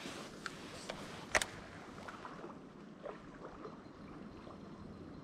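Steady rush of flowing river water, with a few sharp clicks, the loudest about a second and a half in.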